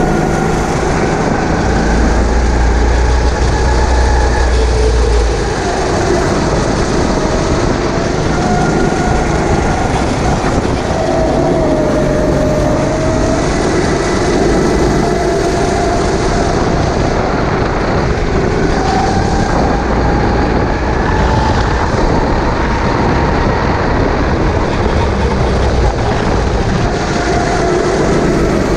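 Racing kart engine running at race pace, its pitch rising and falling with the throttle through the corners, over a dense steady rush of noise and a heavier low rumble at times.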